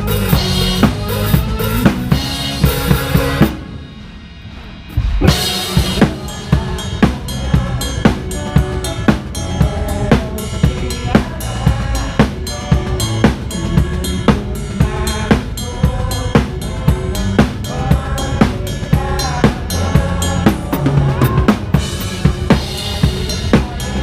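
Live band playing, heard from the drummer's kit with the drums up front: a steady kick-and-snare beat with rimshots over bass and other instruments. A few seconds in the band drops out into a quieter break for about a second and a half, then comes back in on a hit.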